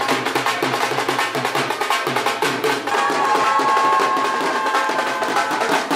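Music with fast, dense drumming; about halfway in, a held melodic note joins the drums.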